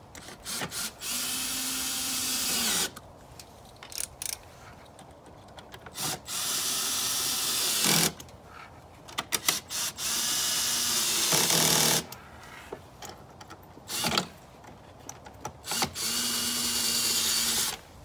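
Cordless drill-driver turning screws, running in four separate bursts of about two seconds each, its motor pitch sagging at the end of some runs, with clicks and handling noises in between.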